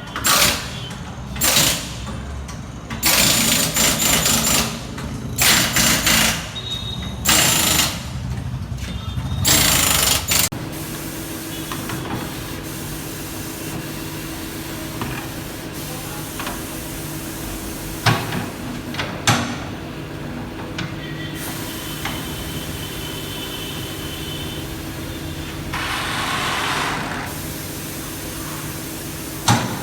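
Tyre-fitting work on a car wheel: air-powered shop tools fire in several loud short bursts over the first ten seconds or so, then a machine runs with a steady hum, with a few sharp clanks.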